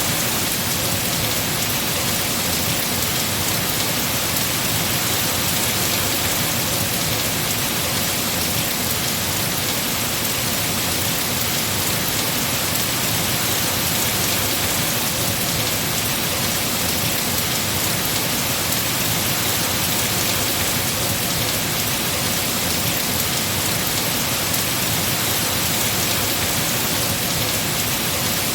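Heavy rain falling steadily on tree foliage, a dense, even hiss of drops.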